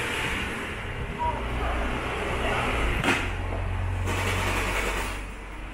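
Steady hum and noise of a claw-machine arcade, with a single sharp knock about three seconds in.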